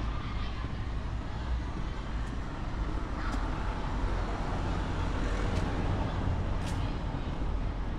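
Street traffic: a motor vehicle passing over a steady low rumble of city traffic, swelling a little in the middle.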